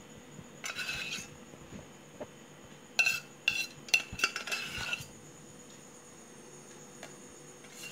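Steel spoon scraping and clinking against a steel mixer-grinder jar and the pan as thick cooked rice paste is spooned onto grated coconut. A short scrape comes about half a second in, then a cluster of ringing clinks from about three to five seconds in.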